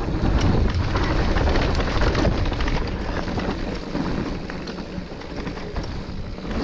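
Electric mountain bike rolling down a rough dirt trail: a continuous rush of tyre noise with many quick clicks and rattles from the bike over roots and stones, a little louder in the first couple of seconds.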